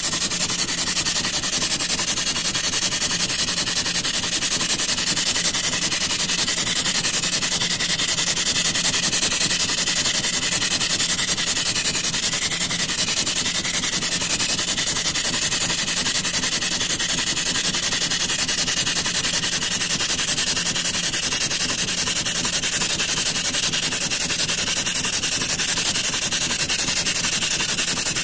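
Boiler feed pump on a 19th-century steam launch, pumping water into the boiler. It runs steadily with a dense, even hiss and never starts or stops.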